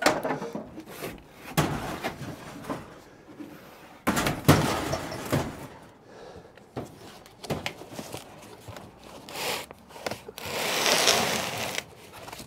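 Equipment being handled in the back of a work van: a series of clunks and knocks on the van floor and shelving, loudest about four seconds in, with a rough noise lasting about a second and a half near the end.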